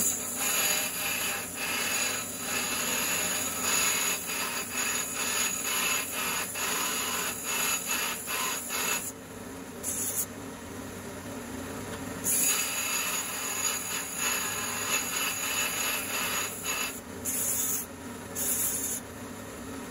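Belt grinder running while the end of a half-inch W1 steel rod is pressed against its belt: a rasping grind that stops and starts in short strokes as the rod is pressed on and lifted off. The grinding pauses twice around the middle, leaving only the belt running, then comes back in short bursts near the end.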